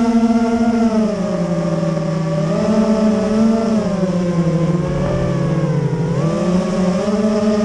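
FPV racing quadcopter's electric motors and propellers whining, heard from on board. The pitch dips and rises several times as the throttle changes, with a deeper dip and a quick climb back up near the end.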